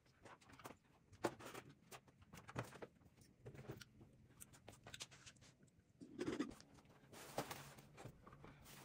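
Faint scattered knocks, taps and rustles of someone moving about a small room: footsteps in sneakers and things being picked up and set down, with a soft thud about six seconds in.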